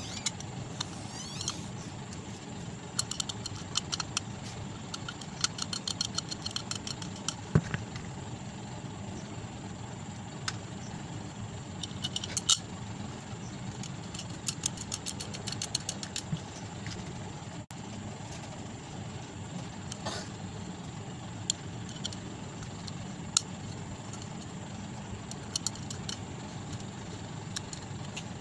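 Small metal clicks and clinks as screws and the bearing bracket of a stand fan motor are handled and fitted into its aluminium housing, scattered irregularly over a steady low background hum.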